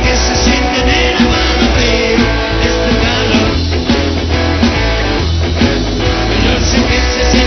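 Rock band playing live and loud: electric guitar, electric bass and drum kit together in a dense, unbroken wall of sound.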